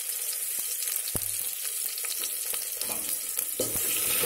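A tempering of shallots, chillies and spices sizzling in hot oil in a steel pot, with a metal spoon stirring and scraping against the pot, giving scattered light clicks over the steady sizzle.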